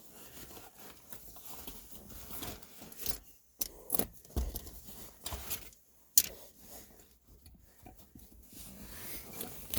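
Small metallic clicks and light scraping as a small mounting bolt for the shifter assembly is handled and turned in by hand, with a handful of sharp ticks spread through it.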